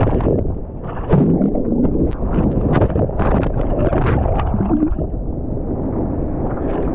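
Turbulent seawater churning and bubbling as a breaking wave's white water rolls over, heard partly from underwater, then splashing and sloshing water at the surface.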